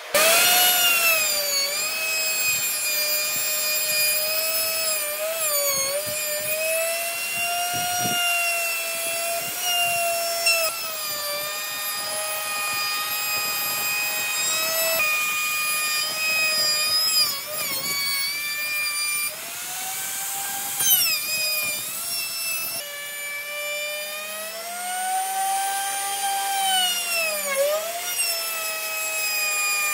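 Electric plunge router running at high speed and cutting along a wooden frame, a high whine whose pitch sags repeatedly as the bit bites into the wood and recovers as the load eases.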